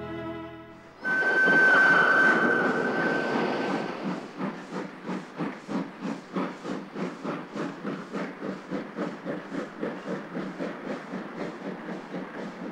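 Steam locomotive whistle sounding about a second in, held for a few seconds over a rush of steam, then the exhaust chuffing in an even rhythm of about three beats a second as the locomotive pulls away with its train.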